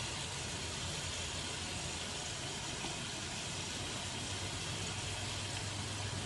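Steady hiss over a constant low hum, with no distinct knocks or splashes.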